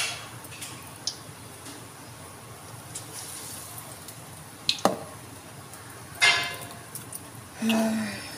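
Batter-coated potato patties deep-frying in hot oil in a kadhai: a steady faint sizzle. It is broken by a few sudden louder sounds: one at the start, a sharp click about five seconds in, a short burst a second later that dies away quickly, and a louder stretch near the end.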